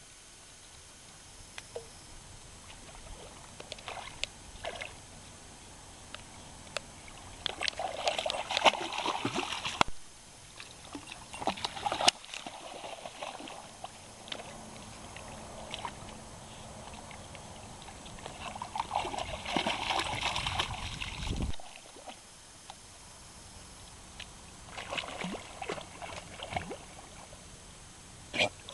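Puppy paddling and wading through shallow water, splashing and sloshing in bouts, the biggest about eight seconds in and again near twenty seconds.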